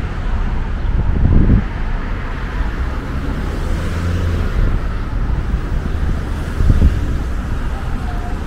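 City street traffic: cars passing with a steady low rumble, swelling louder about a second in and again near seven seconds.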